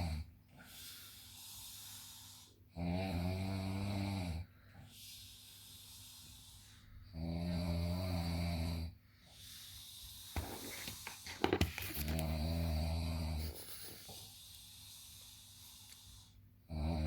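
A person snoring in deep sleep: a low, loud snore on each in-breath, about every four and a half seconds, with quieter breaths between. There are three full snores and the start of a fourth near the end. A brief spell of sharp clicks comes just before the third.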